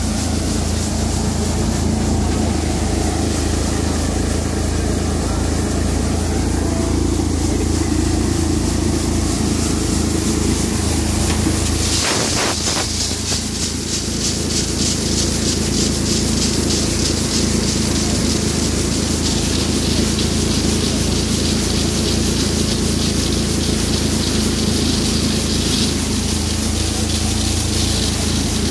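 Multicrop thresher running steadily at working speed: a constant low mechanical drone with a hiss on top, broken briefly about twelve seconds in.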